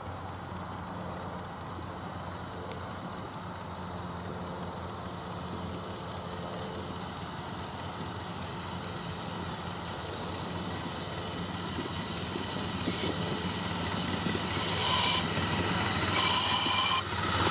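Miniature railway train running along the track with a steady rumble, growing louder over the last few seconds as a hiss of steam comes in near the end.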